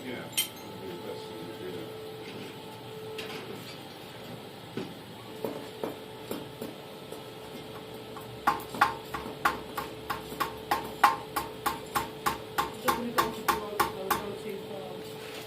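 Hand hammer striking steel on an anvil while forging a flint-and-steel striker: a few scattered blows, then from about halfway a steady run of sharp strikes, about three a second. A steady hum runs underneath.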